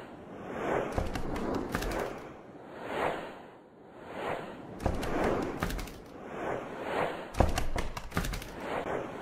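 Animated intro sound effects: a series of swelling whooshes, about one every second or so, with sharp hits and deep thumps among them.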